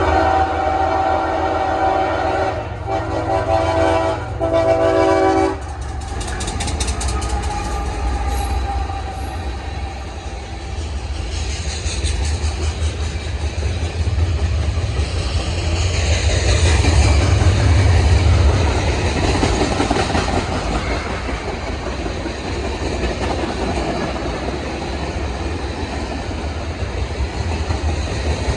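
Diesel freight locomotive's horn sounding a chord in three blasts, a long one then two shorter, stopping about six seconds in. After that the freight train rumbles and clatters past on the rails.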